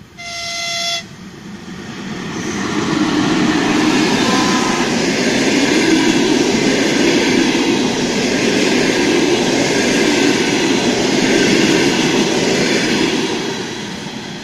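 ChS4t electric locomotive sounds one short, high horn blast about a second long, then the passenger train passes close by: the noise of its locomotive and coaches running on the rails builds up, holds loud, and begins to fade near the end.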